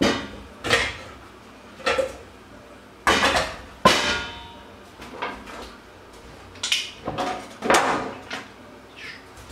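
Stainless steel bowls, a colander and a pot knocking together, a string of metallic clatters. The loudest is a ringing clang about four seconds in.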